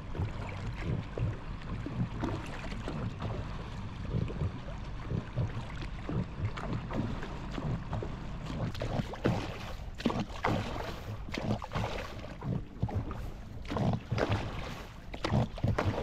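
Water lapping and splashing irregularly against the hull of a small boat at sea, over a steady low background.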